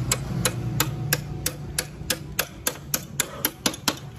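A steady series of sharp taps or knocks, about three a second and coming slightly faster near the end.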